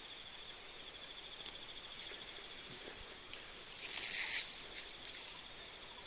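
Insects trilling steadily in forest undergrowth, a high pulsing drone, with a few light clicks and a brief rustle about four seconds in.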